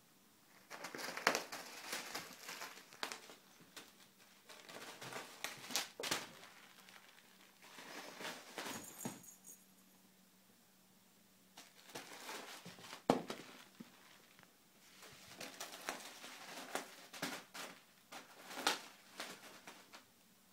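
Bengal cat batting, biting and pushing a white roll across carpet: scuffing and rustling with soft knocks, in bursts of a second or two separated by short quiet pauses.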